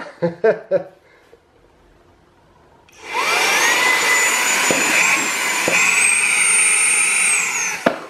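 Brushless cordless mini vacuum-blower starting up with a rising high-pitched whine over a rush of air, then running at full power for about five seconds in a suction-lift test on a small cardboard box. Its whine steps up in pitch once, then falls as it cuts off, with a sharp knock right after.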